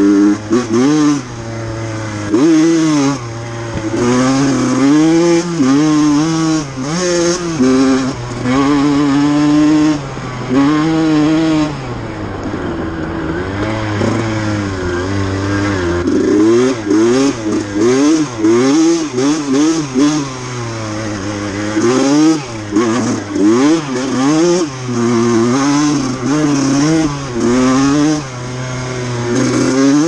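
Small two-stroke KTM dirt bike engine, heard from on the bike while riding a dirt track. The revs climb and fall again and again, with sudden drops as the throttle is shut or a gear is changed.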